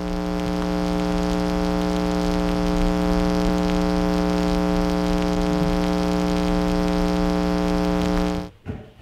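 Steady electronic buzz, a 'technical difficulties' stand-by tone, holding one low pitch with many overtones and cutting off suddenly about eight and a half seconds in.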